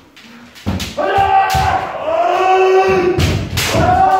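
Kendo kiai: long, drawn-out shouts held for a second or more, mixed with sharp cracks of bamboo shinai strikes and stamping footwork on a wooden dojo floor, starting about a second in.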